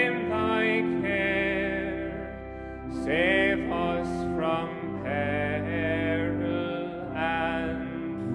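Music: a solo singing voice with vibrato, in several phrases, over held accompaniment chords.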